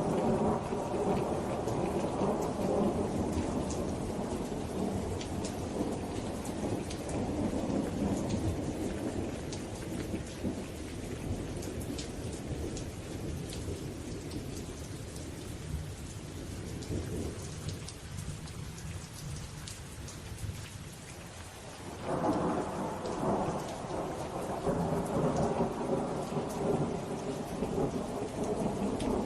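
Steady rain with fine drop ticks and rolling thunder. A long low rumble dies away over the first twenty seconds, and a new one breaks in suddenly about 22 seconds in.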